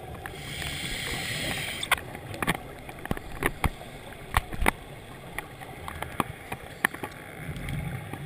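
A diver breathing through a scuba regulator underwater: a hissing inhale for the first two seconds, then a series of sharp, irregular clicks, and the low rumble of exhaled bubbles starting again near the end.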